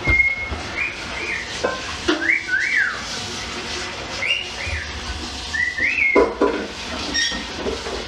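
A person whistling a short, jaunty tune of quick notes that rise and fall in pitch, with a couple of soft knocks along the way.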